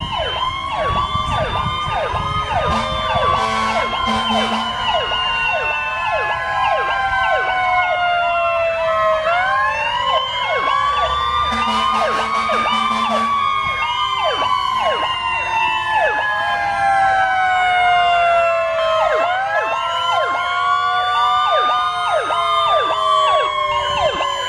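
Several emergency-vehicle sirens sounding together from an approaching parade of fire and police vehicles. One is a wail that rises quickly and falls slowly, roughly every ten seconds, over a fast yelp. Horn blasts come a few seconds in and again about halfway.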